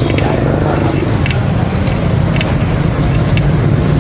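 Steady road and traffic noise with a low rumble, heard while riding a bicycle.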